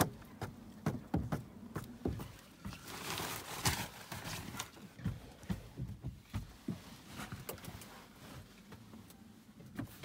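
Scattered light knocks and taps with brief rustling and scraping, heard from inside a parked car as people move in and around it.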